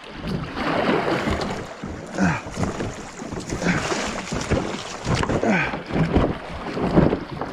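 Fast, shallow river water rushing and splashing around a plastic sit-on-top kayak as it is paddled through a riffle among sunken logs, with wind on the microphone. Paddle splashes and short knocks against the hull come through it.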